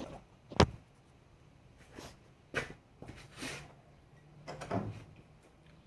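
Handling noise: one sharp knock about half a second in, then a few faint, scattered knocks and rustles as tools and the phone are handled.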